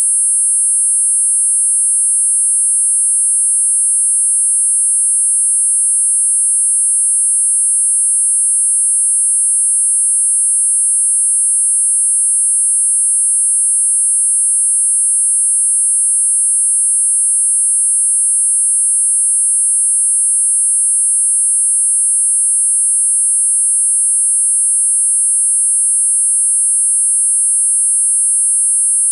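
Four high-pitched sine tones sounding together at 8.5, 9, 10 and 10.5 kHz, held steady without change: a synthesized multi-tone tinnitus masker.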